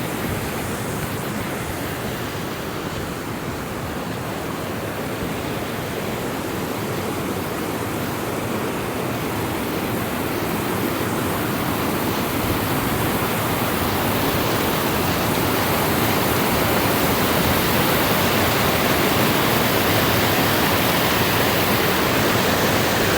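Waterfall rushing steadily, growing louder over the second half.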